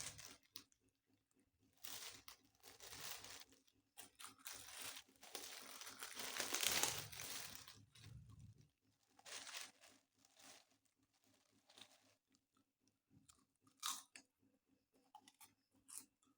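A person biting and chewing crispy kerupuk (Indonesian fried crackers) with a meal, in irregular crunches, loudest about six to eight seconds in.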